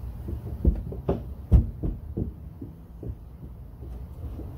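A cluster of irregular dull thumps and knocks, about six in the first three seconds and the loudest about one and a half seconds in, over a steady low hum.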